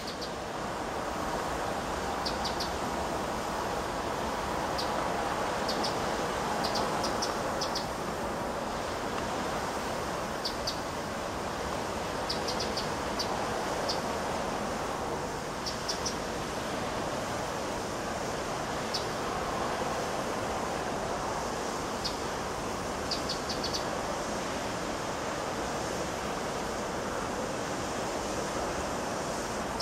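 Steady rushing noise of the sea, with short high bird chirps in quick runs of two to four scattered throughout.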